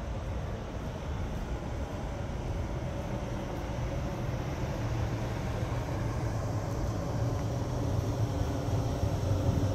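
Steady low rumble of outdoor city noise, with a faint steady hum that gets clearer and a little louder toward the end.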